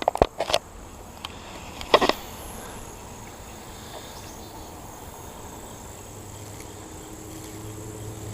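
Insects droning steadily in a thin high-pitched tone in the background. A few clicks sound at the start, and a brief louder noise comes about two seconds in.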